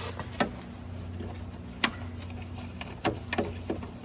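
Sharp plastic clicks and taps from a turn-signal bulb socket being handled and fitted back into the light housing, about six in all and clustered near the end, over a steady low hum.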